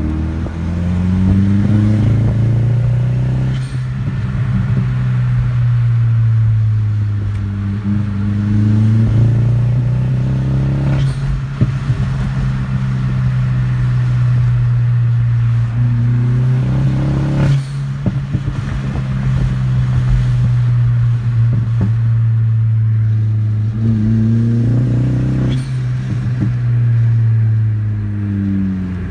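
Volkswagen 1.8T turbocharged four-cylinder engine running under load with a steady drone that wavers slightly in pitch, with four sharp knocks spaced several seconds apart. The owner reports multiple misfires and a loss of boost whenever it goes above about 12 psi.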